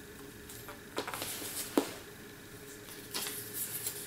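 Rustling and light handling noises, with a sharp click a little under two seconds in: a small tablet and its charging cable being handled and set down on a wooden tabletop.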